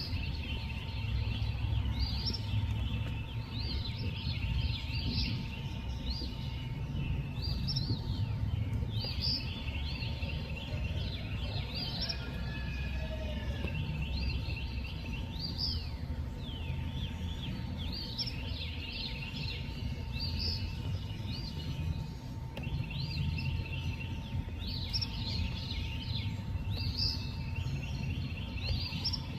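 Night ambience: a chorus of small animals making short, high chirping calls, repeated every second or two, over a steady low rumble. A faint steady hum runs beneath.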